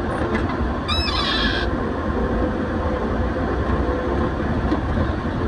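Steady road noise from riding a motorcycle: engine running and wind rushing on the microphone. About a second in there is a brief high warbling sound.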